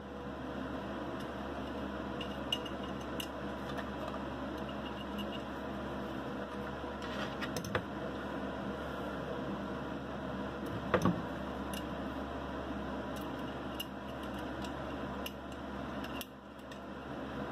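Steady whir of a box fan, with a few light clicks and one louder knock past the middle as small metal parts and an Allen wrench are handled on an AR lower receiver.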